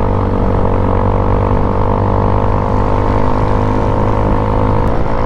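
Motorcycle engine running at a steady speed under way, a constant droning note. The note shifts a little near the end.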